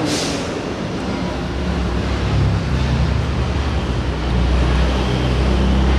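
Steady road-vehicle and traffic noise: a deep rumble under a rushing hiss, growing louder about four seconds in.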